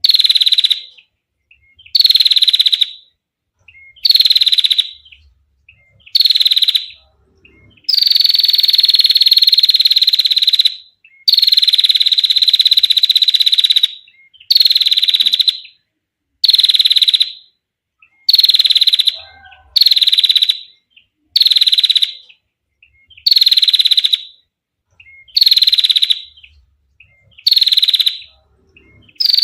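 Female prinia giving its rapid, high-pitched rattling trill ('ngetir'), repeated in bursts of about a second with short gaps, two of them drawn out to two or three seconds near the first third.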